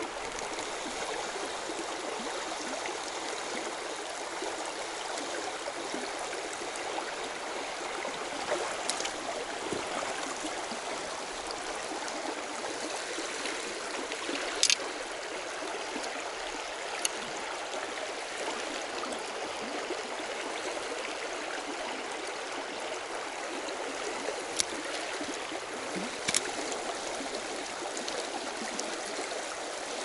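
Shallow mountain stream running over rocks, a steady rushing of water. A handful of short, sharp clicks stand out from it now and then.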